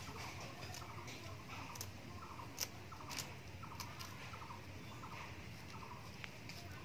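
A run of short, pulsed animal calls repeating about twice a second, with a few sharp clicks, the loudest about two and a half seconds in.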